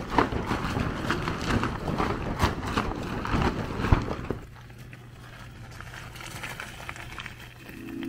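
Camp being packed up: busy rustling and crunching of tent fabric and gear on gravel, with many small clicks, for about four seconds. Then a quieter stretch with a faint low hum, and music begins near the end.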